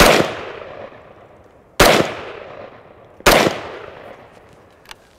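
Three shots from an H&K 770 semi-automatic rifle in .308 Winchester, spaced about a second and a half to two seconds apart, each trailing off in a long fading echo. A few faint clicks near the end.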